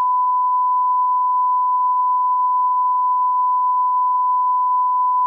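Television colour-bars test-tone beep: one steady, loud, high-pitched tone held unbroken.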